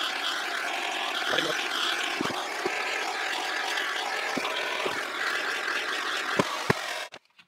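Hand-held gas torch burning with a steady hiss, its flame playing on an aluminium crankcase to heat the crank bearing bore so a new bearing will drop in. A few light clicks sound over it, and the torch cuts off near the end.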